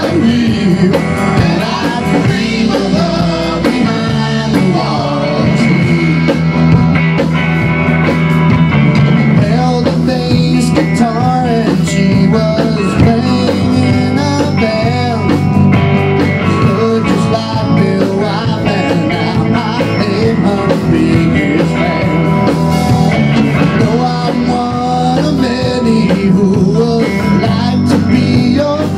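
A rock band playing live: electric guitar, electric bass and a drum kit, with no lyrics sung.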